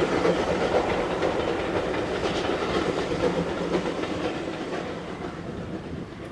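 A train hauled by the steam locomotive LNER J27 65894 running past out of sight and moving away: a continuous rumble with wheels clattering over the rail joints, fading steadily.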